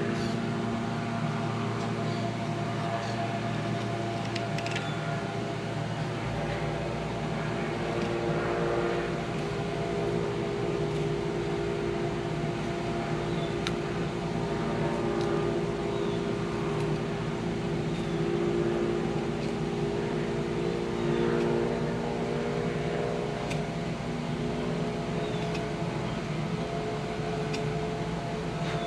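A steady machine hum with several held tones and a few faint scattered clicks; a low rumble joins about six seconds in.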